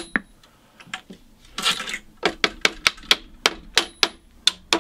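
Rapid light taps, about five a second, from the plastic face of a StewMac fret hammer knocking a Gibson Mastertone banjo's metal tension hooks loose from the flange. They pause for about two seconds near the start, with a short rasping noise in the gap, then resume.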